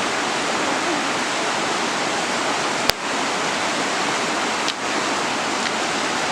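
Mountain river water rushing steadily over rocks. A sharp click comes about three seconds in, and a fainter one nearly two seconds later.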